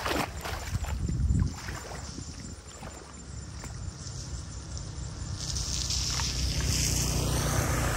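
Feet in sandals splashing and sloshing through shallow floodwater for about the first second and a half, then a steady rush of flowing water that grows louder over the last few seconds.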